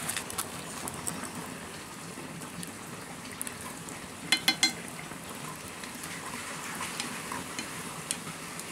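Food cooking in a metal pot over a crackling wood fire, stirred with chopsticks. About four seconds in, a quick run of metallic taps rings out as the chopsticks knock against the pot.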